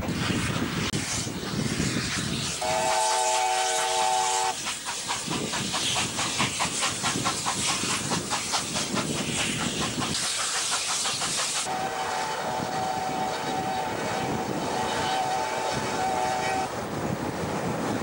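NSWGR C38-class steam locomotive 3801 running with steam hissing and a run of rapid exhaust chuffs. It sounds its chime whistle twice, a short blast about three seconds in and a longer one of about five seconds starting near twelve seconds in. Heard from a carriage window behind the engine.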